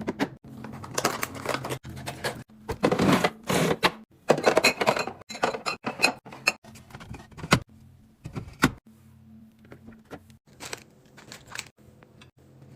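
Snack packaging crinkling and rustling, with sharp clicks and taps as items are handled and set into containers; the busiest stretch is in the first eight seconds, and a low steady hum is present at the start and near the end.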